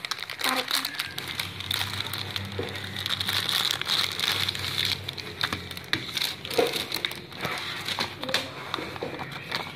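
Crinkling and rustling of microwave popcorn packaging handled by hand: the cardboard box and the plastic-wrapped popcorn bag, in many small crackles, over a low steady hum.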